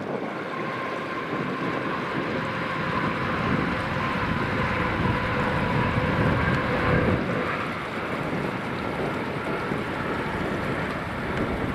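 ScotRail Class 380 electric multiple unit running past, with steady whining tones over its running noise; it grows louder to a peak about seven seconds in, then eases off.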